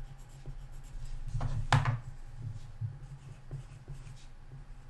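Pen writing strokes, scratching irregularly, with one sharper tap about two seconds in.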